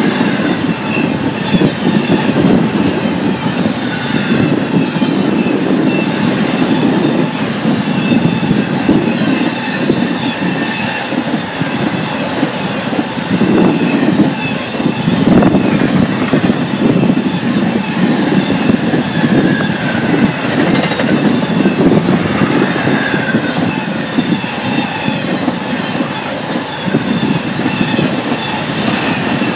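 Freight train's intermodal cars passing at speed: a steady, loud rolling noise of steel wheels on the rails, with faint high squeals from the wheels drifting in and out.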